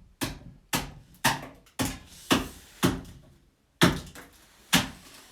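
Axe hewing a split birch half-log, roughing it into a cylinder for a cup blank: about eight sharp chopping strikes, roughly two a second, with a short pause about three and a half seconds in.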